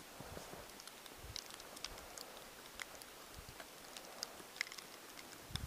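Faint, irregular footsteps in snow: soft crunches and scattered light ticks.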